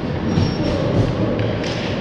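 Ice hockey play in a rink: thuds of sticks, puck and boards, with a few short scrapes over a steady low arena rumble.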